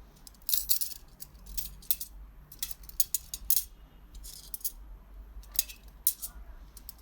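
Steel wheel spokes clinking against one another and against the hub and rim as they are handled and threaded in, an irregular run of light metallic clicks and jingles.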